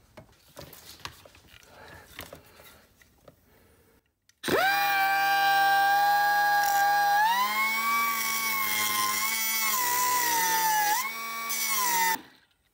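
Milwaukee portable band saw cutting the steel tabs off a Cessna 172 starter solenoid's case. It starts about four seconds in with a steady whine, rises in pitch a few seconds later, dips briefly near the end, and stops shortly before the end. Before the saw starts there are only faint handling clicks.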